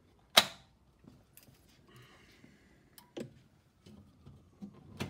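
One sharp metallic clack about half a second in, then a few lighter clicks around three seconds in and near the end. These come from the Chester Cub 630 metal lathe's chuck guard being lowered and its controls being set before the cut.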